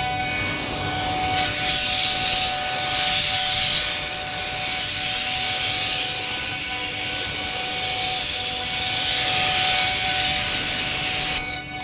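CNC router spindle spinning a 12 mm diamond cutter at about 18,000 rpm while rough-milling a facade panel. It makes a steady whine under a loud hissing cutting noise, which swells twice as the cutter bites harder and drops away shortly before the end.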